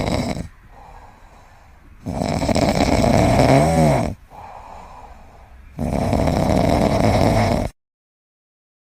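A pet snoring loudly: two long, rasping snores about two seconds each, with quieter breaths between them. There is a brief whistling, wavering note in the middle of the first snore, and the sound cuts off abruptly near the end.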